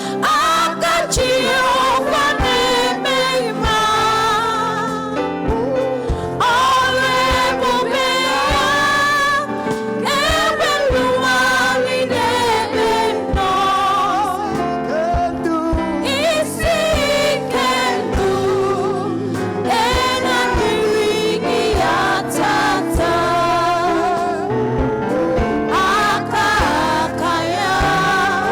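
Gospel song with a choir singing over a band with a steady beat.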